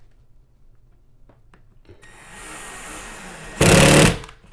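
Power drill whirring into the wall at a marked spot to check for a stud, then a loud burst of drilling about three and a half seconds in as the bit goes into the stud.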